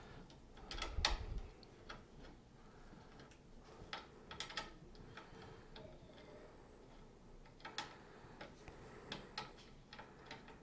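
Faint, irregular clicks and taps of small metal hardware being handled as a bed-levelling adjustment nut is threaded onto a spring-loaded bed screw, with a dull bump about a second in.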